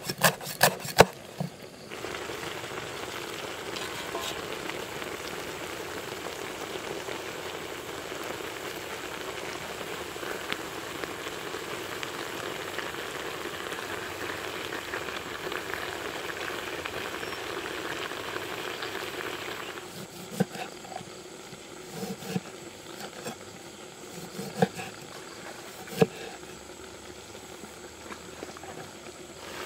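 A cleaver chopping on a wooden board with quick sharp strikes, then a steady sizzle of fish frying in a wok. After the sizzle cuts off, a knife knocks against the wooden board several times, cutting limes.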